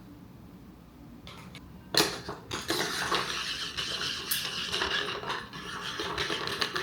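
A sharp knock about two seconds in, then ice cubes clinking and rattling against a glass for several seconds as an iced coffee is stirred.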